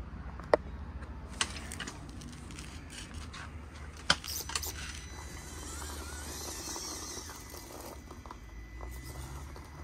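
Electric RC monster truck (Traxxas TRX-4MT with an Injora Purple motor and 40.3:1 reduction) driving off over concrete: faint motor and gear whine, with a few sharp clicks and knocks in the first half. A steady low rumble runs underneath.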